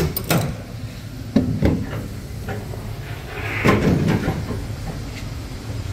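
A few sharp knocks and clunks, with a louder, longer noise about four seconds in, over a steady low hum.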